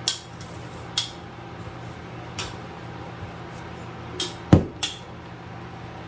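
Stainless steel KitchenAid mixer bowl clinking and knocking against a countertop as it is tipped over to empty out bread dough: a few light clinks, then a heavy knock about four and a half seconds in and a lighter one just after. A steady low hum runs underneath.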